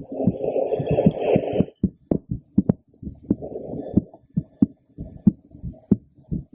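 Human heartbeat heard through a stethoscope: regular paired lub-dub thumps. For the first second and a half a rustling noise covers the beats.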